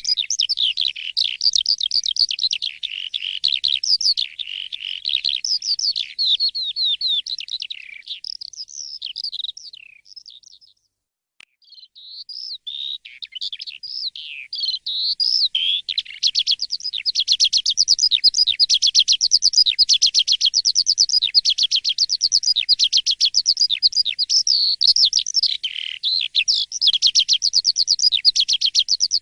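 Asian pied starling (jalak suren) singing a long, rapid song of chattering whistles and trills. The song breaks off for about a second around the middle, then resumes.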